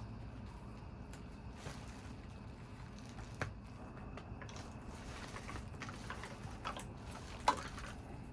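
Quiet handling noises of a monitor's plastic parts being pried and lifted apart: scattered small clicks and scrapes, with a sharper click about three and a half seconds in and the loudest click near the end.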